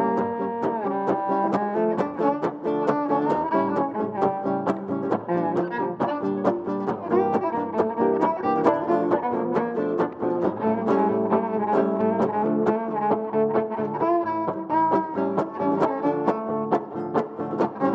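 A small live band playing a lively tune with a steady beat, an upright bass underneath.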